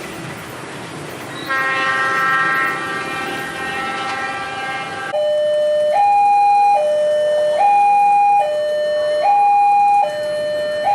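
A locomotive horn sounds as one steady chord for about three and a half seconds. About five seconds in, a railway level-crossing alarm starts up: an electronic two-tone that steps between a low and a high note roughly every 0.8 s.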